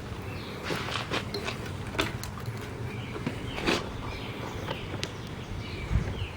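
Handling noises: scattered light clicks, knocks and rustles of jumper wires and meter leads being picked up and sorted.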